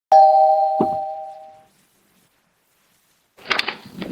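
Two-tone doorbell chime ringing out suddenly and fading over about a second and a half, with a thump under it. A burst of rustling and clicking noise starts near the end.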